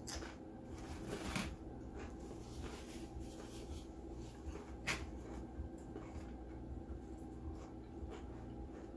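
Eating and food-handling noises during a mukbang: a few short crunches and clicks, the strongest about a second in and again near five seconds in, over a steady low room hum.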